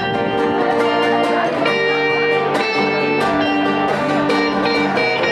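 Music led by guitar, with held chords and notes struck at a steady pulse.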